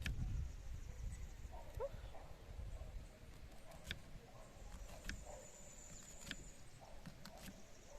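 Knife clicking against a cutting board in scattered sharp taps while pineapple is sliced, over a low rumble that fades in the first seconds. A thin high steady tone sounds for about a second and a half midway.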